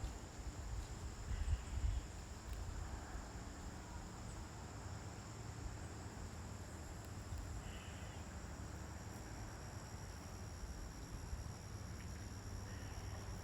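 Steady high-pitched trilling of insects, several unbroken tones held together, over a low rumble of distant road traffic. A few faint short chirps come about a second in, around eight seconds in and near the end.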